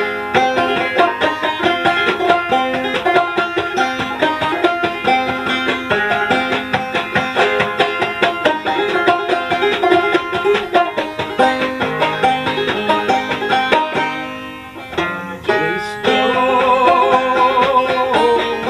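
Five-string banjo played clawhammer style: a steady, busy run of plucked notes, with a brief break in the playing about fourteen seconds in before it picks up again.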